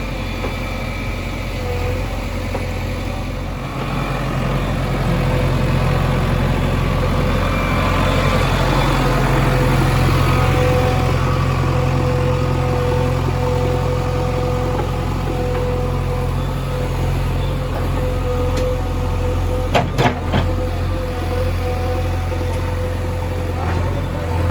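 A heavy diesel engine running steadily. It picks up in revs about four seconds in and holds there, with two sharp knocks about twenty seconds in.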